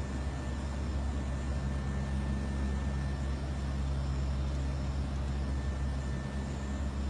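Steady low drone of an aircraft's engines and airflow heard inside the cockpit, several deep hums layered under an even rushing hiss, with a faint thin steady tone above.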